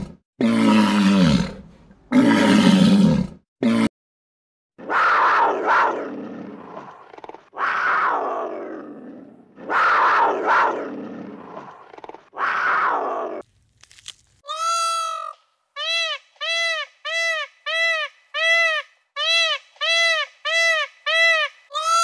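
A lion roaring in three short loud bursts, then a run of long harsh calls that each fall in pitch. About halfway through these give way to a fast, even series of clear honking bird calls, about two a second.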